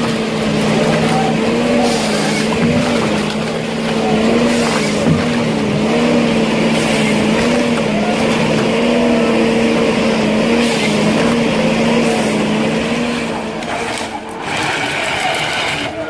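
A forestry harvester's diesel engine and hydraulics running hard while the harvester head feeds and cross-cuts a stem, a steady hum whose pitch wavers up and down with the load. The hum breaks off about fourteen seconds in.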